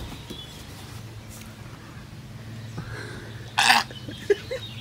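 A man gagging: one short, harsh retch about three and a half seconds in, over a low steady hum.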